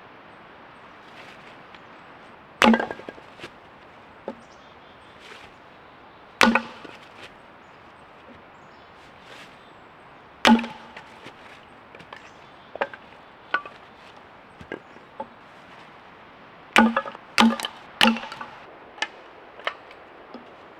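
Firewood logs being split by hand: six heavy chopping strikes into wood, spaced a few seconds apart at first, then three in quick succession near the end, with lighter knocks between.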